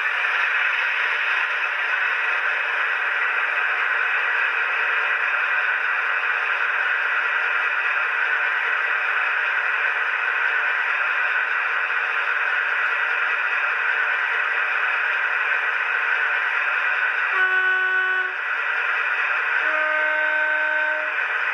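Sound decoder of a Dapol OO-scale Class 68 model (Olivia's Trains sound file) playing a diesel locomotive engine running steadily through the model's small speaker, thin with no bass. About seventeen seconds in, the locomotive's horn sounds twice: a short note, then a lower, slightly longer one about two seconds later.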